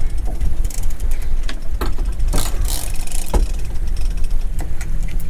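Small boat's outboard engine idling, a steady low rumble, with scattered clicks and knocks of fishing tackle and gear being handled.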